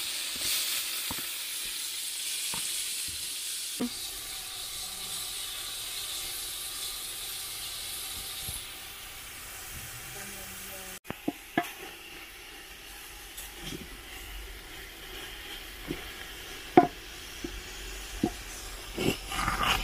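Leafy greens sizzling and steaming in a hot aluminium pot, the hiss fading after about eight seconds. After a sudden break, a wooden cooking stick stirs the greens, with scattered knocks and scrapes against the pot.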